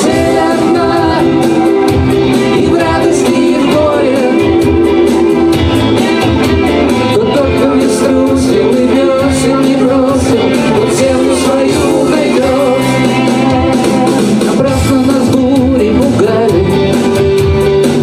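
Live band music with a steady beat, a repeating bass line and singing.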